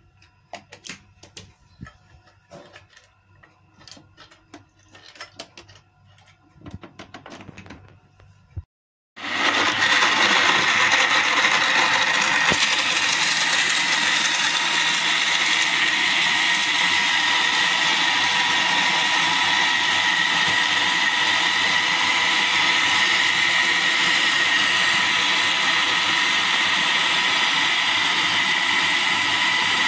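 Light clicks and knocks, then about nine seconds in a countertop electric blender starts and runs steadily with a whine, blending mango pieces, milk and cream into a shake.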